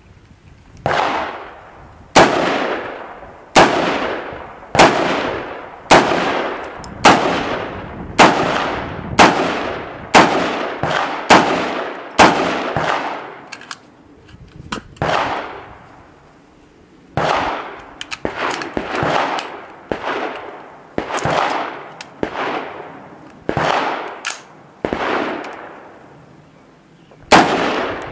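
Semi-automatic rifle fired in a long string of single aimed shots, about one a second, each crack trailing off in an echo. The firing breaks off for a second or two near the middle and again near the end before resuming.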